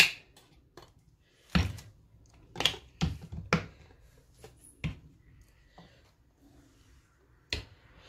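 A series of sharp knocks and clicks, about seven of them, as sauce bottles and utensils are handled and set down on a wooden cutting board; the loudest comes at the very start, with a cluster between about one and a half and four seconds in.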